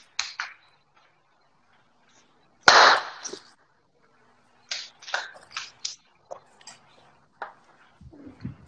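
A knife and utensils knocking and clicking on a wooden cutting board while basil leaves are cut. The loudest is a single heavy knock about three seconds in, followed by a run of lighter clicks.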